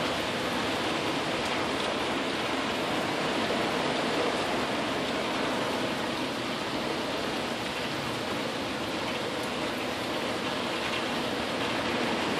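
Steady tropical-storm rain falling, an even hiss with no letup.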